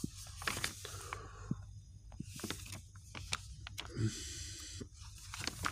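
Pages of a paperback book being leafed through and handled: soft paper rustles with scattered light clicks and taps.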